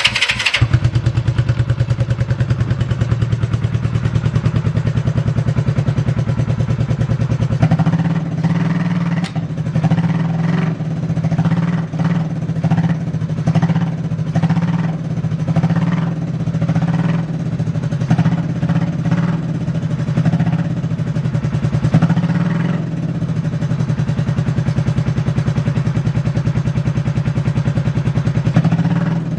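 Honda CB350 parallel-twin engine starting and running: the electric starter's whine stops about half a second in as the engine catches, then it runs steadily, a little louder from about eight seconds in. It idles stably, with no unusual noises.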